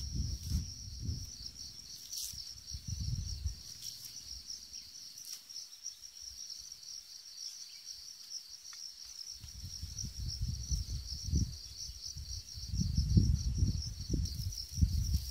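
Steady high trilling of insects in the grass, like a cricket chorus. Low rumbling noise of no clear source comes in for the first few seconds and again through the second half, louder near the end.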